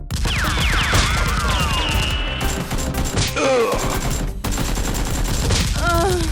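Rapid gunfire in repeated bursts over background music with a steady bass beat. Falling and rising whistle-like glides sound in the first two seconds.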